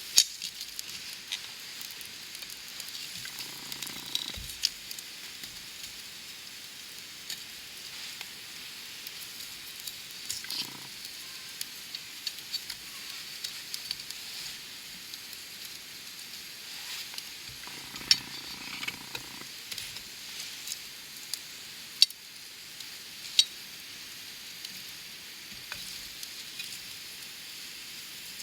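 Wood campfire burning: a steady hiss with scattered sharp crackles and pops from the firewood, a few of them much louder than the rest.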